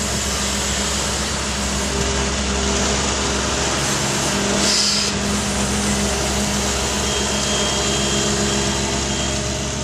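Doosan amphibious excavator's diesel engine running steadily while the machine works, with a brief hiss about halfway through.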